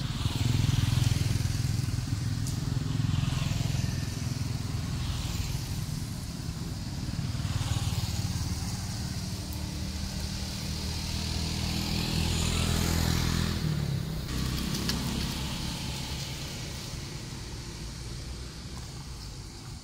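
A motor engine running with a low, steady sound that weakens for the last several seconds.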